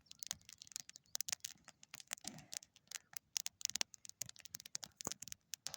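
Wood campfire crackling: a steady run of irregular sharp pops and snaps.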